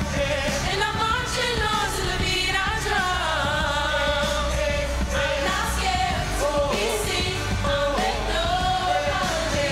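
Vocal group singing into microphones over musical accompaniment with a steady low bass.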